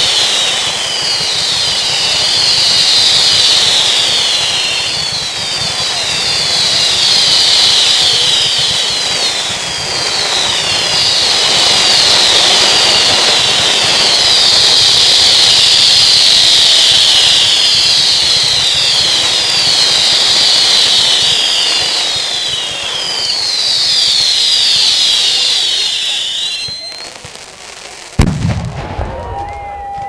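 A barrage of whistling fireworks from a tall set piece: many overlapping falling whistles over a steady hiss, all stopping about 27 seconds in. A single bang follows about a second later.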